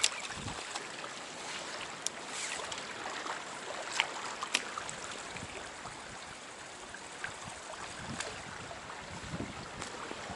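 Trout stream water running steadily, with a few short sharp clicks.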